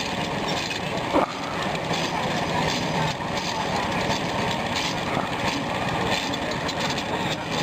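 Scale live-steam traction engine running as it is driven past: a steady hiss with faint, uneven chuffs, and one sharp knock about a second in.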